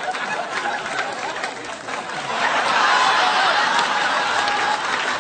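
Room full of people laughing, swelling suddenly about two seconds in, with scattered sharp clicks throughout.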